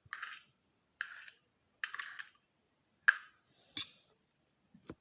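Fingers picking and peeling at a cold egg: five short crackly scrapes about a second apart.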